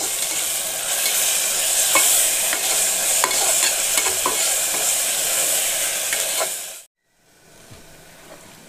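Onions and ginger-garlic paste sizzling in hot oil in a pressure cooker, being sautéed to cook off the paste's raw smell, while a metal spatula stirs and clicks against the pot. Near the end the sound cuts out abruptly and comes back much fainter.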